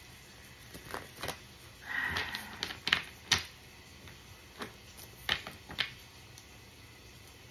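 Tarot cards handled on a table: a string of sharp taps and clicks, with a brief rustle of cards about two seconds in.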